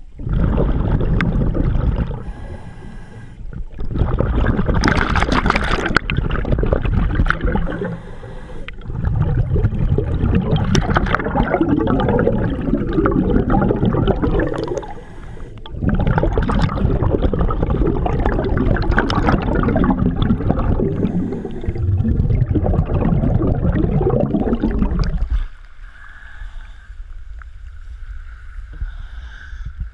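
A scuba diver's exhaled bubbles rush and gurgle past the head in five long bursts, with short quieter breaks between breaths. About 25 seconds in, the noise drops to quiet water lapping as the diver reaches the surface.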